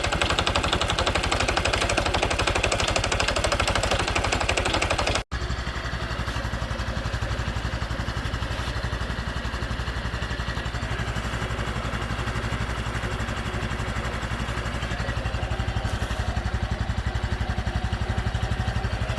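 Honda Super Cub 110's air-cooled single-cylinder four-stroke engine idling. For about five seconds it runs louder and more clattery. Then, after a brief break, it runs quieter and smoother at a steady idle, as the two halves of a before-and-after engine repair comparison.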